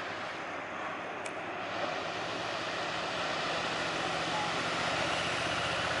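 Steady roar of heavy ocean surf breaking, with a low motor hum that grows louder over the last few seconds.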